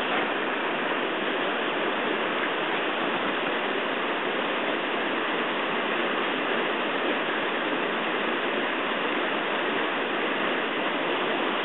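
River water rushing steadily through rapids.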